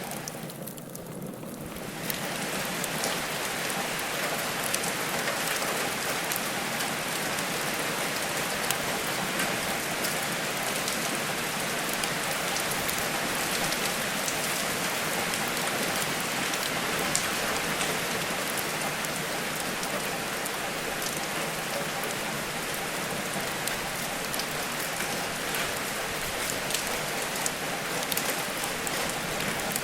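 Steady rain falling, with scattered sharp ticks and crackles from a fireplace layer mixed in; the rain briefly thins in the first two seconds, then holds steady.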